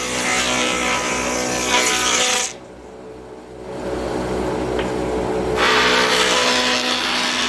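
Bench router (tupia) motor running with a steady whine and noise. About two and a half seconds in, the sound drops sharply for about a second, then builds back to full.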